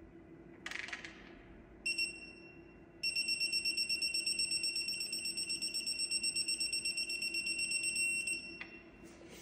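Electronic torque wrench beeper on a propeller hub bolt: a short high beep about two seconds in, then one long, rapidly pulsing high beep lasting about five seconds, the signal that the set torque is reached. A short metallic rattle from the wrench comes less than a second in.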